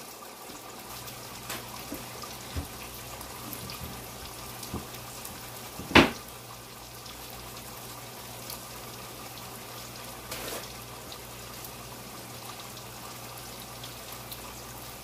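Water running and trickling at a kitchen sink as a plate is rinsed off, a steady watery hiss with a few light knocks of dishware and one sharp clack about six seconds in.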